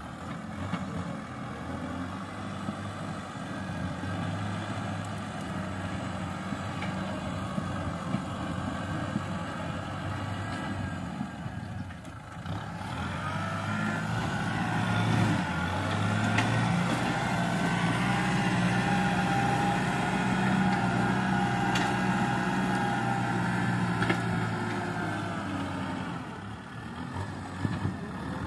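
Kubota M6040 tractor's four-cylinder diesel engine running under load while pushing soil and brush with its front blade. The engine grows louder and higher after a brief dip about halfway through, then eases near the end.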